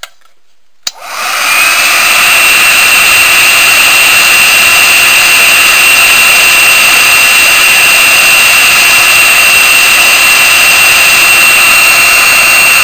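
Black & Decker KX1800 hot air paint stripper switched on with a click about a second in, its fan rising to a loud, steady rush of hot air with a steady high whine, blowing on a surface-mount chip to melt its solder.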